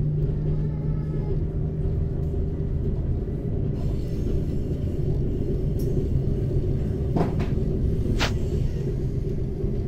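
Zentralbahn train running downhill: a steady rumble with a constant low hum. A couple of short, sharp sounds come about seven and eight seconds in.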